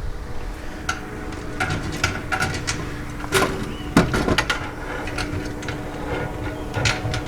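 Scattered clicks and knocks of chicken coop panels and bolts being handled and fitted during assembly, over a steady low hum.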